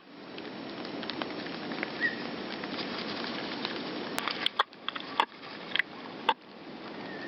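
Small songbirds, great tits and blue tits, with a steady background hiss, one short high chirp about two seconds in, and a run of sharp clicks or taps in the second half.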